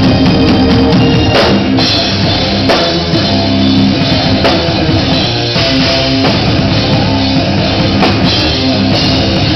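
Metal band playing live: a drum kit pounding under sustained electric guitar and bass notes, loud throughout.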